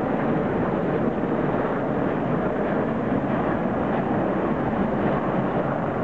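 Steady, even drone of military aircraft flying past in formation: twin-engine propeller planes and a group of Sea King helicopters, heard at a distance as one blended roar.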